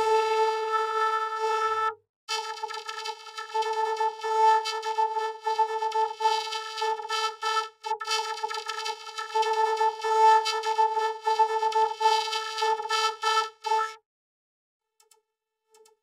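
Vocoded, synthesizer-like horn tone held at one steady pitch, buzzy with many overtones. It cuts out briefly about two seconds in, flickers choppily through the middle, and stops about two seconds before the end.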